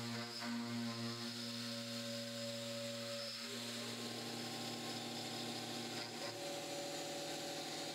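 CNC milling machine spindle running with an end mill cutting 40X alloy steel: a steady whine of several tones over a rough cutting noise. The tone shifts about halfway through as the cut changes.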